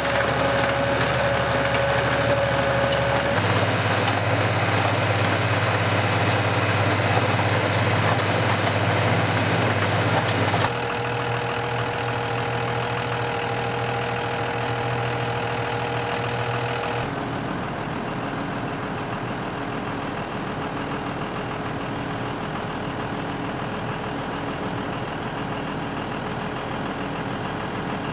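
Tractor engine running steadily at a low, even speed, with a steady low hum. Its tone and loudness shift abruptly three times, at about 3, 11 and 17 seconds in.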